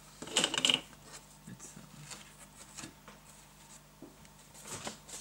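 Cardboard box and paper being handled: a short loud rustle about half a second in, then soft scattered rubbing and tapping, with more rustling near the end.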